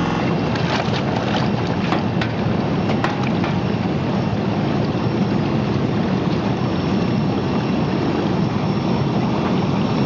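Bubble-type washing machine's tank of water churning hard with air bubbles: a steady rushing, bubbling water noise as the fish are washed. A few sharp clicks sound in the first three seconds.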